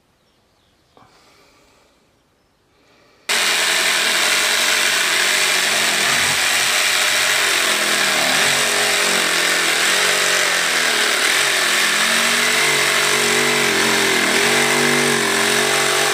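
Corded jigsaw sawing a circular hole in a boat's deck. It starts suddenly about three seconds in and runs steadily, its motor pitch wavering and dipping as the blade works through the cut.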